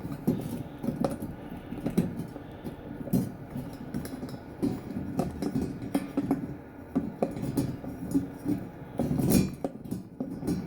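Irregular small metal clicks, knocks and clatter from a star (Torx) screwdriver loosening the screws on a bathroom exhaust fan's motor and sheet-metal housing while the parts are handled.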